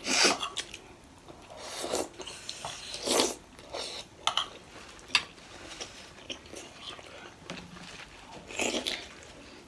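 Close-up eating sounds of momo dumplings: biting and chewing in irregular bursts, with a sharp click about five seconds in.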